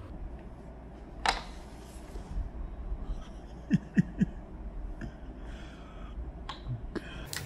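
Scattered light clicks and taps of a toy carrom board's striker and coins as shots are flicked, with a cluster of clicks a little past the middle, over a low steady hum.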